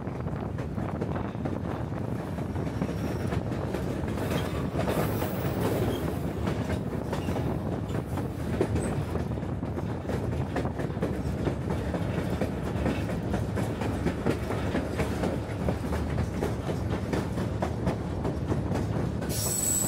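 White Pass & Yukon Route narrow-gauge train rolling along the track: a steady rumble with clattering clicks from the wheels over the rails. A high wheel squeal sets in at the very end.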